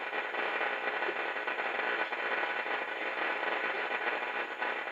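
1940 Philco 40-180 tube console radio giving a steady hiss of static through its speaker while tuned between stations on the shortwave police band (1.5 to 3.5 MHz).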